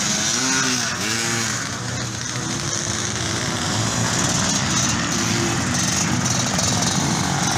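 Vintage off-road motorcycle engines revving and pulling away from a hare scramble start line, sharply up and down in pitch between about half a second and a second and a half in, then settling into a steadier drone.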